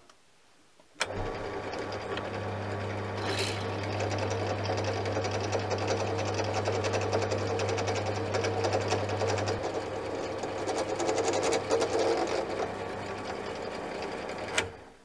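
Small machine tool's electric spindle motor switched on with a click about a second in, running with a steady hum while an oiled spiral reamer cuts down into a pre-drilled hole in a steel plate. It is switched off with a click near the end.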